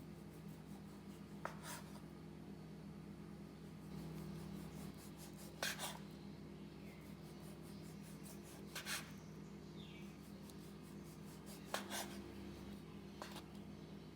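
Five short scraping sounds, roughly one every two to three seconds, over a steady low hum.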